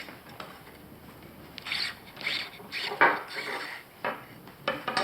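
Tent pole sections being handled as new shock cord is fished through them: irregular scraping and rubbing, with a sharp click about three seconds in and another short knock near the end.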